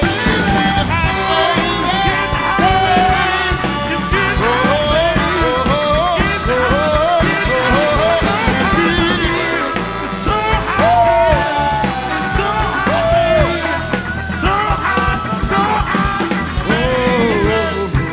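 Live band music with a steady beat under a sliding, wavering lead melody, with singing at times.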